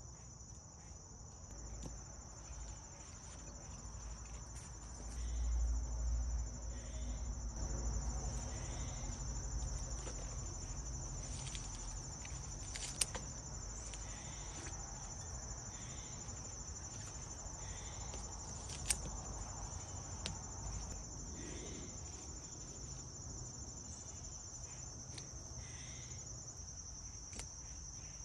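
Insects trilling in a steady, high-pitched chorus that goes on without a break. A low rumble rises for a few seconds early on, and two sharp clicks come about six seconds apart midway.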